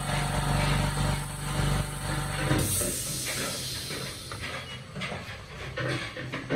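CNC digital knife fabric-cutting machine running with a steady hum and hiss, which drops away abruptly about two and a half seconds in. After that come quieter, irregular handling noises as cut fabric is lifted from the table.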